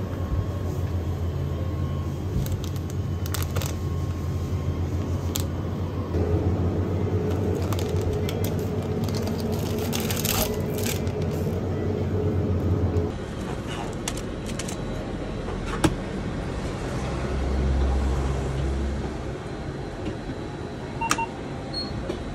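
Convenience-store ambience: a steady low hum with scattered clicks and rustles of packaged goods and a plastic iced-coffee cup being handled. The hum drops away about halfway through, and a short electronic beep sounds near the end as the self-serve coffee machine's button is pressed.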